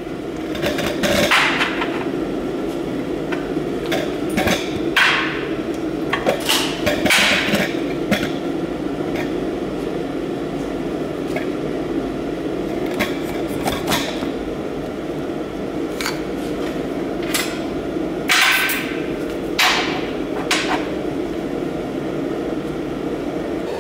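Metal tools and parts knocking, clinking and scraping on a steel welding table as a wrench, a bent-rod torch holder and a TIG torch are handled. There are scattered sharp knocks and brief scrapes, clustered in the first eight seconds and again around the three-quarter mark, over a steady hum.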